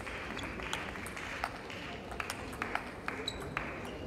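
Table tennis rally: a celluloid-type ball clicking off the bats and the table in quick succession, over the steady hiss of a large hall.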